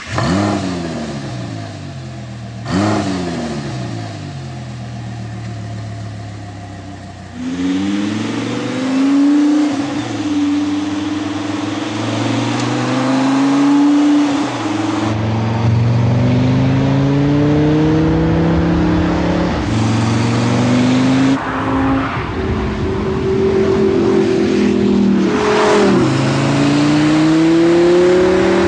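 Audi R8's 5.2-litre V10 through an Akrapovič titanium slip-on exhaust: it catches with a loud rev flare, is blipped once, and settles to idle. It then accelerates hard several times, the pitch climbing over a few seconds and dropping suddenly at each gear change.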